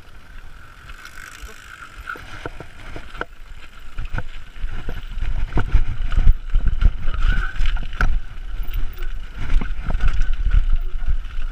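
Mountain bike riding over a rough trail: the bike clatters and knocks irregularly over roots and rocks, and wind rumbles on the microphone. The rumble grows louder about four seconds in as the bike picks up speed.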